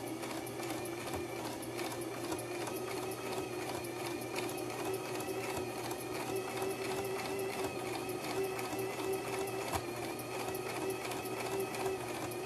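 Electric sewing machine running steadily at an even speed: a motor hum with a rapid, even needle clatter, sewing a blind hem stitch.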